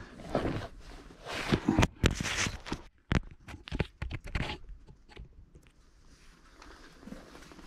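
A large flat-packed cardboard box being shoved and shifted after it wedged, close to the microphone: scraping and rubbing, then a quick run of sharp knocks about three seconds in, quieter after.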